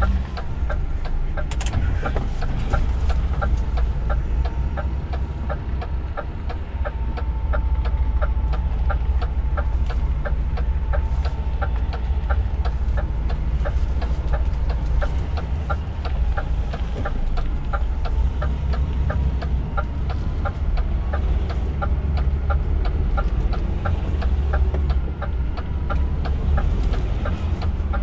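DAF lorry's diesel engine running at low speed in the cab, a steady low rumble, with a rapid, even ticking repeating through it.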